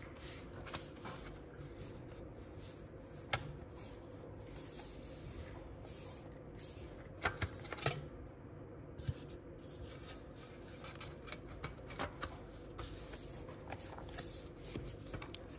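Aluminium bottom case of a MacBook Air being handled and pressed down onto the laptop by hand: hands rubbing and sliding on the metal, with several sharp clicks as the case is pushed into place.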